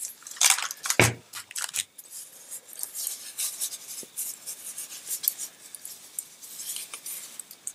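Hands handling a small velvet drawstring pouch and tumbled crystal stones: soft rustling of cloth with scattered light clicks, and a soft knock about a second in.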